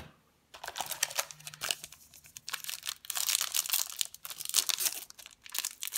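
A baseball card pack's wrapper being torn open and crinkled by hand, starting about half a second in and crackling on, ripped apart roughly enough to mangle the pack.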